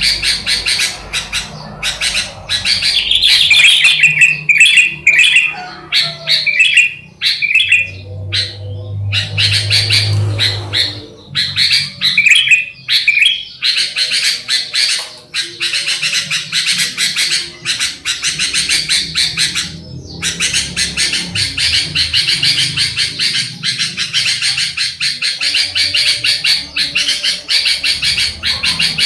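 Sooty-headed bulbuls (kutilang) calling: warbled phrases at first, then from about halfway a fast, almost unbroken chatter of chirps.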